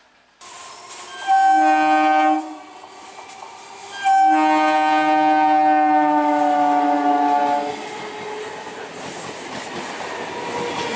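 Electric multiple unit local train sounding its horn: a short blast of about a second, then a long blast of about three and a half seconds. The train's running noise and wheel clatter then build as it passes over the level crossing.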